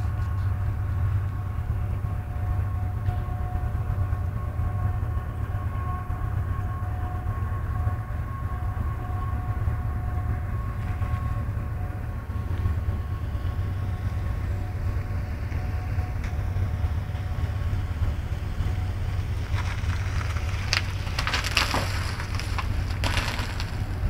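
A long freight train passing across the water, a steady low rumble with faint steady high tones through the first half. Several loud crunching noises come near the end.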